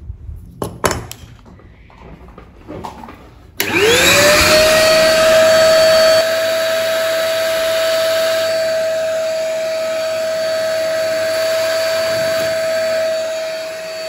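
A few light clicks and taps, then about a third of the way in a vacuum cleaner switches on. Its motor whine rises quickly to a steady pitch and holds as it sucks built-up dust out of a laptop's cooling fan and air vent, getting a little quieter a couple of seconds after it starts.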